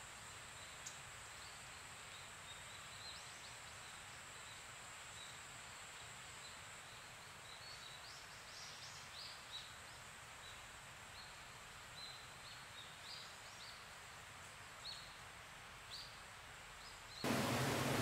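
Quiet forest ambience: an even hiss with a thin steady high-pitched tone and scattered short bird chirps. About a second before the end it cuts abruptly to much louder water trickling and dripping over a mossy bank.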